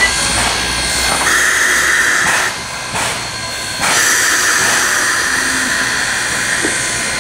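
Steam locomotive hissing steam as it backs slowly: a steady hiss comes on about a second in, breaks off for about a second, and resumes near four seconds.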